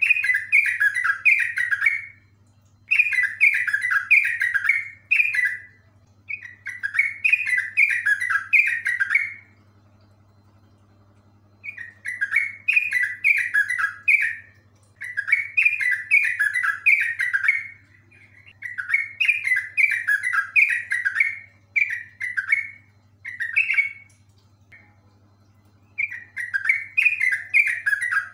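Yellow-vented bulbul singing its rolling song: repeated phrases of quick bubbly notes, each a couple of seconds long with short pauses between, and a longer pause about ten seconds in.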